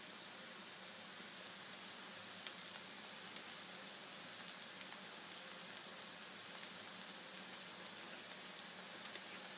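Kurkure deep-frying in hot oil: a steady sizzle with scattered small pops, the pieces still soft and cooking.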